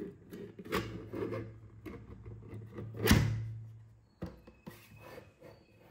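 3D-printed plastic cell holder with four large cylindrical cells sliding into a 3D-printed plastic case: plastic scraping and a few light knocks, the loudest scrape about three seconds in.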